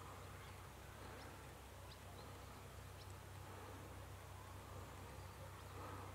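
Very quiet outdoor ambience, close to silence: a steady low hum under a faint hiss, with a few faint, short high chirps.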